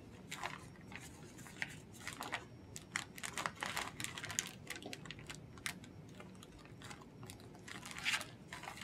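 Sterile suction catheter package crinkling and crackling as it is opened and handled, a run of short irregular crackles.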